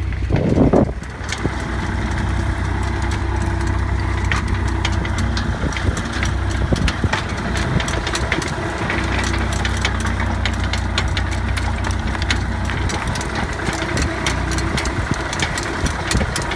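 Tractor engine running steadily while pulling an old corn planter, with many sharp clicks and rattles throughout and a short louder burst under a second in.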